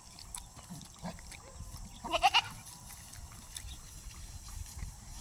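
A single wavering bleat from a goat or sheep, lasting about half a second, about two seconds in, over faint low background noise and scattered small clicks.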